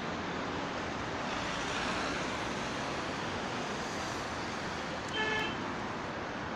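Steady road traffic noise, swelling slightly about two seconds in, with one short car-horn toot about five seconds in.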